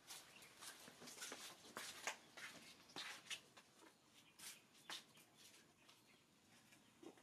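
Faint rustling and crackling of dry leaves and twigs: a quick string of small crackles through the first five seconds or so, then quieter.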